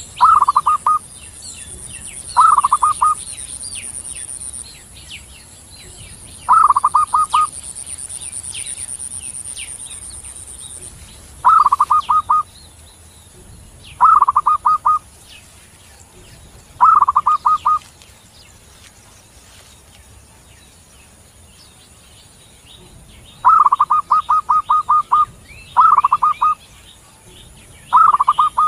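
Zebra dove (perkutut) singing: short runs of quick, staccato coos, each phrase rolling out in rapid pulses and repeated every few seconds, nine phrases in all. Fainter high chirps of small birds sound between the phrases, and a steady high insect-like buzz runs through the first third.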